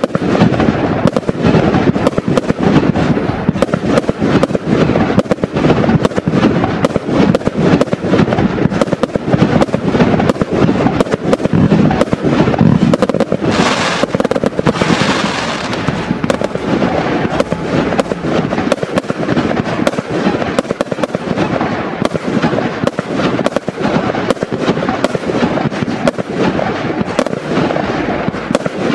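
A four-times-50-shot firework barrage (Absolute Fireworks AF0912) firing without a break: rapid, overlapping launch thumps and bursting shells. About halfway through, a stretch of hiss rises over the bangs.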